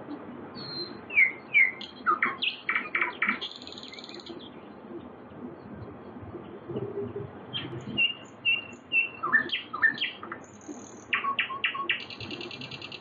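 Songbirds chirping and calling in quick bursts of short, high notes, with three busy spells and brief lulls between them.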